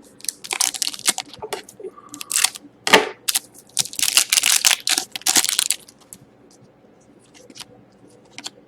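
Trading-card packaging crinkling and tearing in loud bursts as cards are handled, then a few faint clicks and rustles near the end.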